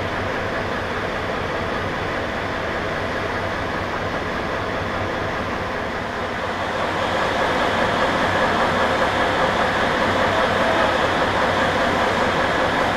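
Trains at a railway station: a historic diesel railcar's engine running steadily as it moves off. About seven seconds in, a louder steady hum takes over, from an electric locomotive standing at the platform.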